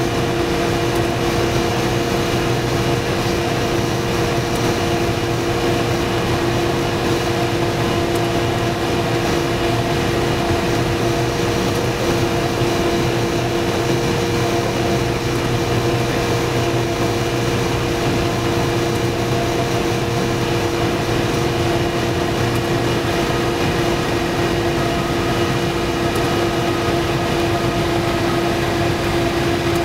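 Cessna 172's piston engine and propeller droning steadily, heard inside the cabin through final approach, touchdown and landing roll.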